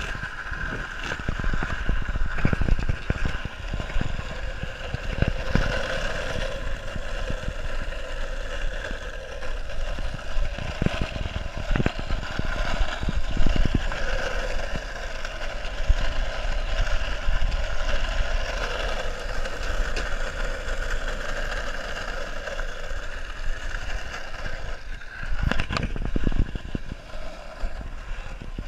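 Skateboard wheels rolling fast on asphalt: a steady rolling roar with strong low rumble and occasional sharp clicks as the wheels cross cracks and seams in the pavement.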